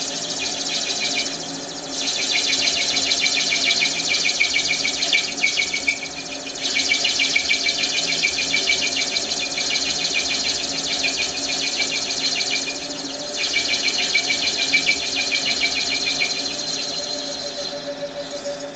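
Metal lathe parting off a brass bushing: the parting tool cuts with a high, fast chattering squeal in several long stretches broken by brief pauses, over the steady hum of the lathe, dying away near the end as the piece comes off.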